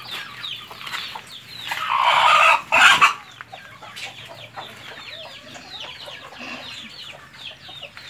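Native chickens clucking and calling, with many short high calls repeating throughout and one loud, longer call about two seconds in.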